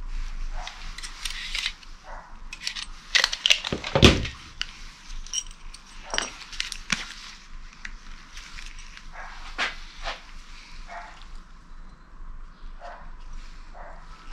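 Clicks and knocks of hand tools and loose metal bolts being handled on a workbench, with one loud knock about four seconds in.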